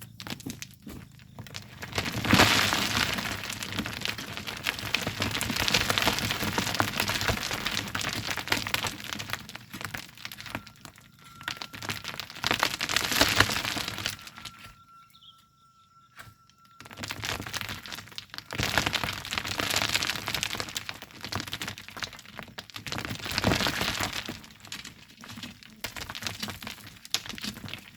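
Volcanic sand and gravel being worked by hand: a dense, gritty crunching and rattling crackle that swells and fades every few seconds, with a short lull about halfway through.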